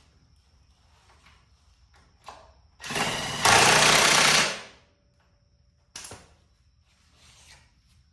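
Power wrench running a bolt down in a rapid rattle for about two seconds, starting about three seconds in and louder in its second half. A short sharp knock follows about six seconds in.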